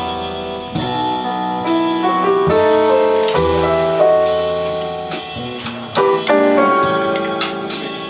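Live jazz piano trio playing: grand piano chords and melody over upright bass notes, with cymbal strokes from the drum kit.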